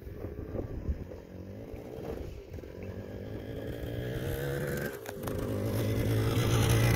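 An engine running steadily, growing louder over the last few seconds, over rumbling wind noise on the microphone.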